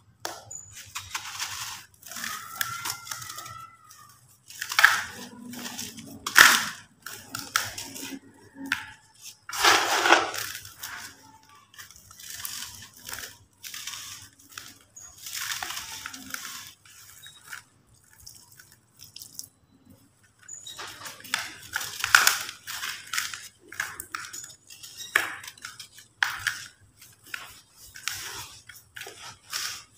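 Dry sand-cement lumps crumbled and crushed by hand into a plastic bucket: irregular bursts of gritty crunching with short pauses between squeezes.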